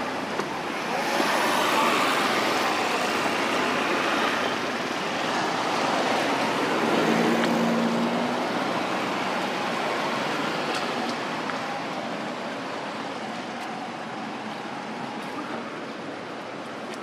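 Steady outdoor background roar, much like road traffic, with a short low hum about seven seconds in.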